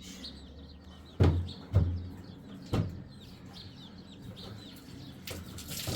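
Chickens clucking, with three sharp knocks in the first half.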